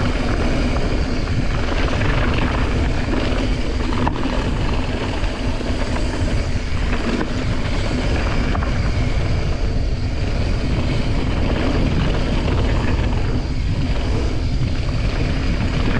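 Wind buffeting the camera microphone over the rumble of mountain-bike tyres rolling fast down a gravel and dirt trail, with scattered clicks and rattles from the bike over bumps.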